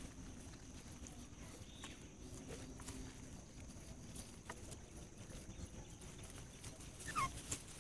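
Faint outdoor ambience: a steady high thin hum under scattered soft clicks and rustles, with a short sliding chirp near the end.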